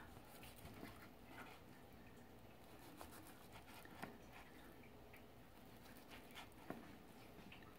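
Near silence with a few faint knocks of a kitchen knife going through a rolled omelette onto a wooden cutting board as it is sliced.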